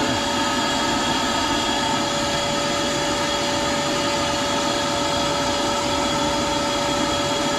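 Shop vac rigged as a pond vacuum, its motor running steadily at full speed with a constant high whine over a rushing air noise.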